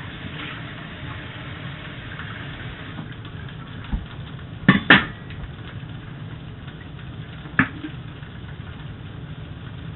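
Rice stir-frying in a wok, a steady sizzle, broken by sharp clanks: two close together about halfway through and one more a little later.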